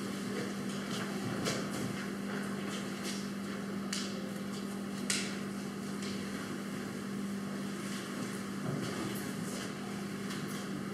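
Hushed church room with a steady low hum and scattered small clicks and knocks as communion cups and bread are handed around the congregation; the sharpest knock comes about halfway through.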